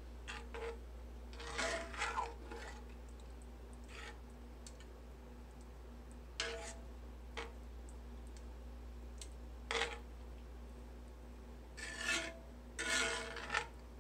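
Metal spoon scraping and stirring in a cast iron skillet of creamy pasta, in short separate strokes with a faint metallic ring, a cluster near the start and more near the end. A steady low hum runs underneath.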